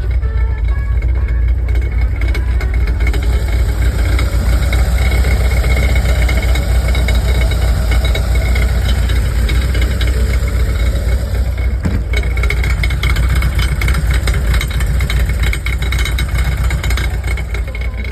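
A vehicle engine running with a steady low drone and a fast, continuous rattle from the exhaust area, whose cause is unknown.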